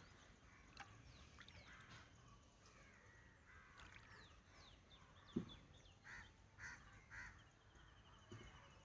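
Faint birdsong of small twittering birds, with a crow cawing three times about six seconds in and a single soft knock just before.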